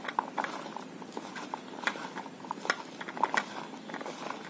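Chopped guava pieces being tossed and squeezed by hand with spices and kasundi in a plastic bowl: an irregular run of small clicks and soft squishing, with a few sharper clicks as pieces knock against the bowl.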